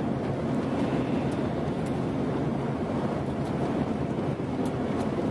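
Steady road and engine noise heard from inside the cabin of a moving vehicle.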